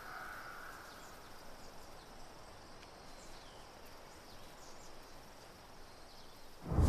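Faint outdoor forest ambience with a few thin, high chirps. Near the end a loud low rumble swells up suddenly.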